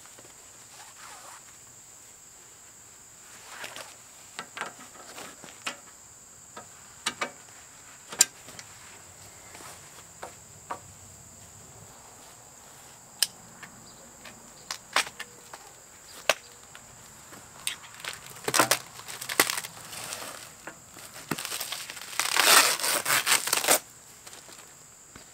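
Packaging on a new tractor auger being torn and crumpled by hand: scattered crackles and clicks, then a dense stretch of crinkling and tearing near the end, the loudest part. A steady high insect drone runs underneath.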